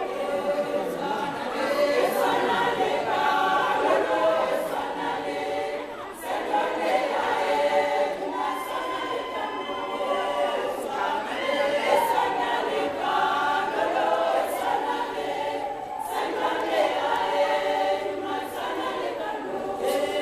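A women's choir singing a cappella, with brief breaks between phrases about six and sixteen seconds in.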